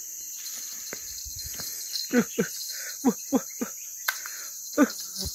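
Steady high-pitched insect drone from the riverside forest. Several short, falling vocal calls cut through it from about two seconds in.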